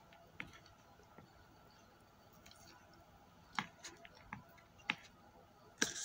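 Scattered small clicks and taps of eating by hand close to the microphone: fingers picking food from a plastic container, with faint mouth sounds. The sharpest click comes just before the end.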